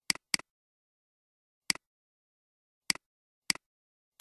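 Computer mouse clicks, each a press followed by a softer release: two in quick succession, then four more spaced about a second apart.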